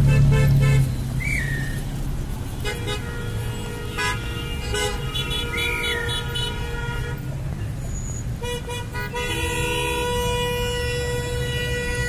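Car horns honking in stalled traffic: several horns held for seconds at a time and overlapping, in two long spells, over idling engines and traffic noise. A loud engine rumble close by in the first second.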